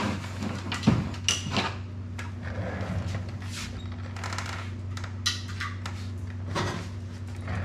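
A few scattered clicks and light knocks of parts and tools being handled on a workbench, over a steady low hum.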